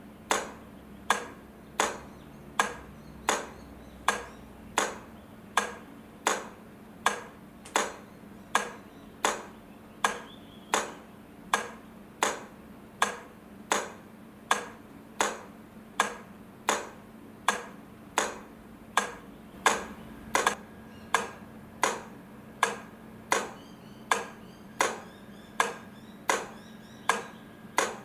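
Railway crossing light flasher clicking in a steady rhythm as the lights alternate, a little more than one sharp metallic click a second, each ringing briefly, over a faint steady hum.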